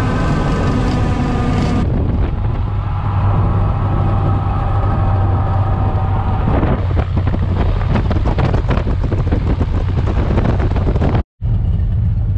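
Single-engine light aircraft's piston engine running steadily at low power, heard inside the cabin as the plane taxis on the runway, with a constant low drone. The sound changes abruptly about two seconds in and cuts out for a split second near the end.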